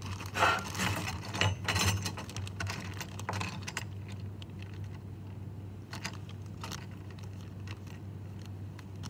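Small plastic and metal construction-kit parts clicking and rattling as a hand rummages in a plastic zip-lock bag, with the bag rustling. The clicks come thick in the first few seconds, then only now and then, over a low steady hum.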